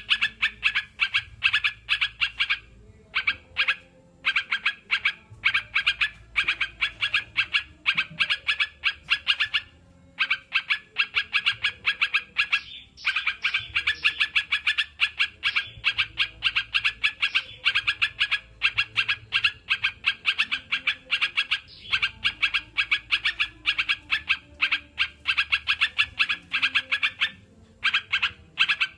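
Yellow-vented bulbul (crucukan) chattering: long runs of rapid, short notes, broken by brief pauses a few times.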